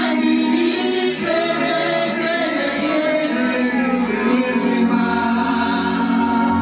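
Choir singing a gospel song in long held notes over sustained chords.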